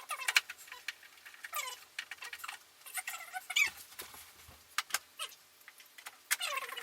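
Screws being turned into a digital piano's stand during assembly, giving a run of short squeaks, several falling in pitch, with sharp clicks between them.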